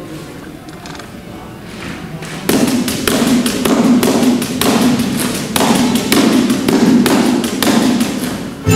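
Percussion beats in an orchestra of folk instruments, even strikes about three a second that start a few seconds in. The full orchestra comes in on sustained chords at the very end.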